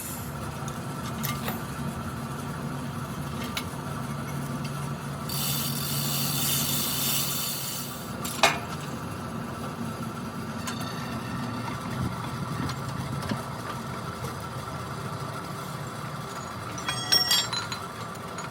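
Metal repair work on a stone crusher: a steady low hum, a few seconds of hissing about a third of the way in, one sharp metal knock just after, and a quick run of metal clinks near the end.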